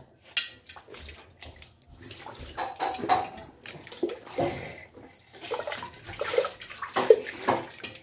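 Water splashing and running over stainless-steel plates, lids and bowls as they are washed by hand, with scattered sharp clinks of the metal dishes.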